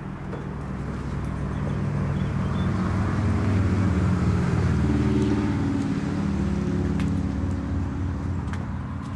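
A passing engine, its low drone swelling to a peak about four seconds in and then fading away.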